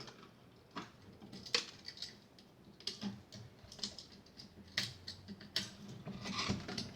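Faint, irregular small clicks and taps of hands and a tool working the wires and terminal screws of a three-way light switch being wired.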